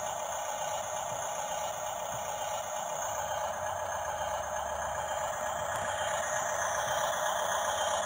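RC toy bulldozer's simulated diesel-engine sound effect, a steady rattle with little bass.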